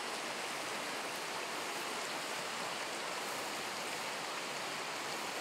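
Steady rushing of flowing river water, an even hiss with no change in level.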